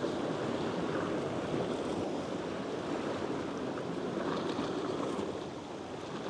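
Sea surf washing steadily against a rocky shore ledge, easing slightly near the end.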